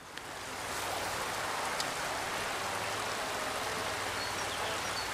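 Rushing water of a small trout stream, a steady even wash of noise that swells in over the first second.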